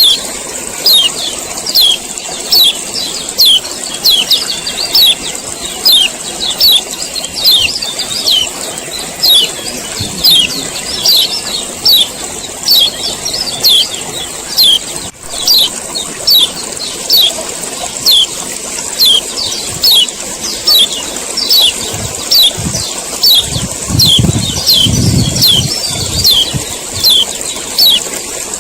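Male kecial kuning, a Lombok yellow white-eye, giving its 'ciak ciak' call: a rapid, unbroken run of short, high, falling chirps, with a louder note about once a second. A steady high hiss lies under the calls, and a few low thuds come near the end.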